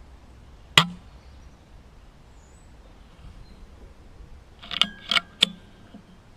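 A single silenced shot from a Weihrauch HW100KT .177 pre-charged air rifle just under a second in: a sharp crack with a short low thump. About four seconds later comes a quick run of four metallic clicks, one with a brief ringing, typical of the sidelever being cycled to chamber the next pellet.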